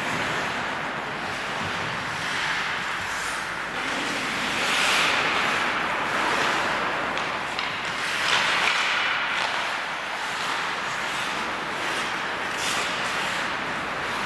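Ice hockey skates scraping and carving on rink ice, a hiss that swells and fades as players stride and stop, with a few sharp clacks of sticks and puck.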